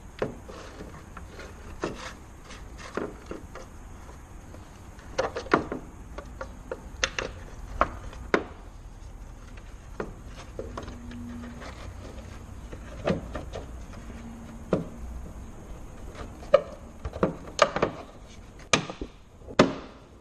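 Plastic rear tail light assembly being handled and fitted into its opening in the car body: irregular clicks, taps and knocks of plastic against the car, with a run of sharper knocks near the end as it is pressed home.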